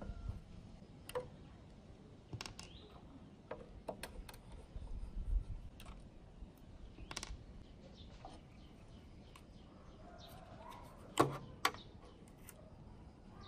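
Screwdriver working screws out of an old television's plastic cabinet to free its speaker: scattered light clicks and small knocks of metal on screws and plastic. The loudest is a sharp knock about eleven seconds in.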